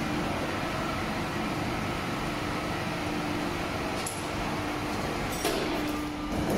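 Steady hum and noise of factory machinery running, with a faint steady drone coming in about two seconds in.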